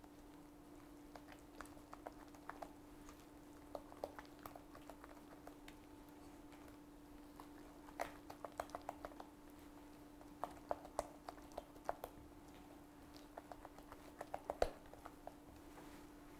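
A utensil clicking and scraping in a pot as mashed potato is stirred and worked with warm milk, in scattered runs of quick taps. A steady low hum runs underneath.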